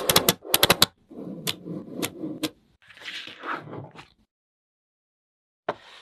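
A quick run of sharp clicks and taps, then scraping and rustling as small objects are handled, stopping about four seconds in; two more clicks come near the end.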